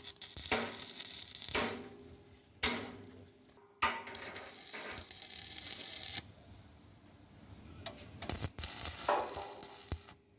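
Stick (manual arc) welding on the steel pin boss of a JCB excavator bucket: the electrode's arc crackles and hisses in stretches that start suddenly and fade, with the longest steady run a little past the middle.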